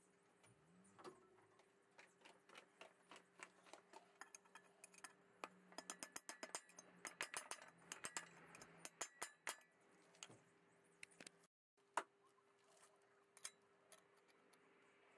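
Faint metallic clicks and scrapes of a steel spring clip being worked into the groove of an aluminium housing's bearing bore with a pick. They come in a quick run of clicks in the middle, with one sharper click near the end, over a faint steady hum.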